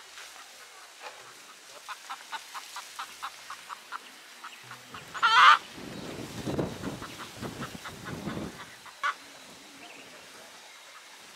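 A domestic chicken squawks loudly once about five seconds in and gives a shorter call about nine seconds in, over a run of faint ticks; a low rumble follows the squawk for a few seconds.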